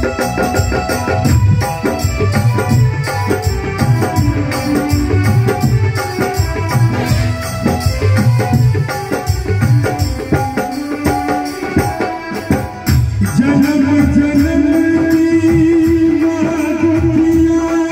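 Live band with drum kit and keyboards playing music with a steady beat. About thirteen seconds in, a long held note comes in over it.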